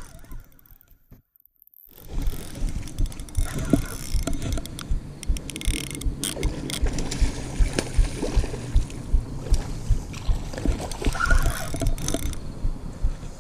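Penn Slammer III 5500 spinning reel being cranked on a retrieve: a quick, uneven run of low knocks and clicks that starts about two seconds in, after a near-silent moment.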